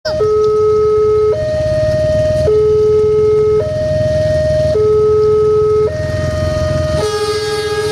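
Two-tone electronic warning alarm at a railway level crossing, switching steadily between a low and a high tone about every second, over a continuous low engine rumble. A further set of higher tones joins in near the end.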